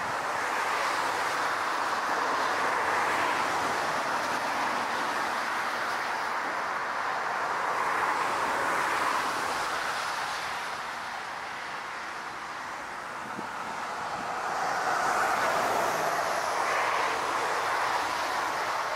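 Steady rushing roar of an Airbus A380 on final approach, blended with gusting crosswind. It swells and eases in slow waves, dipping about two-thirds of the way through and building again near the end, where a faint high whine rides over it.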